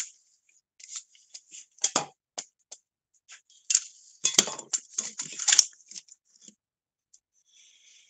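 Rummaging and handling noise: irregular clicks, rustles and light clinks of small objects being moved, with two sharper knocks about four and a half and five and a half seconds in, then it goes quiet.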